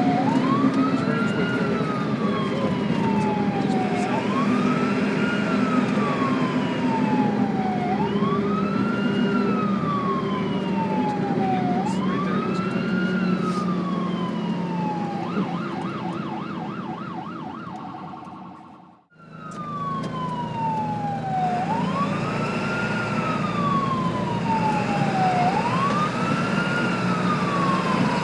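Ambulance siren wailing, each cycle a quick rise and a slower fall in pitch, about every four seconds, over the low rumble of the vehicle and road. About two-thirds through it switches briefly to a fast warble, fades away, then the wail starts again.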